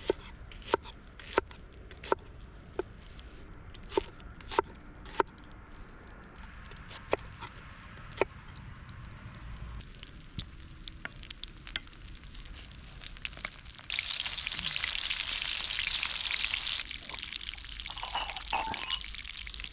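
A row of sharp, evenly spaced taps, then past the middle a loud sizzle rises as vegetables hit the hot fat in a forged pan and frying for a few seconds before easing.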